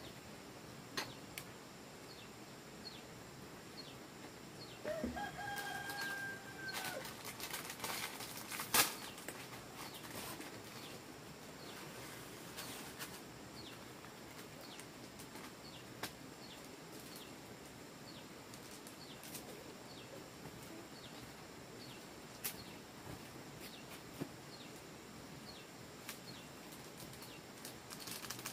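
A rooster crows once about five seconds in, a call of about a second and a half. Around it a faint high chirp repeats steadily, and sharp clicks and knocks come here and there, the loudest a little after the crow.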